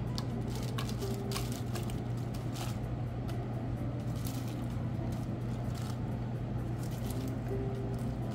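Fresh spinach leaves dropping and rustling into a mixing bowl, a scattered series of light crackling taps, over a steady low hum.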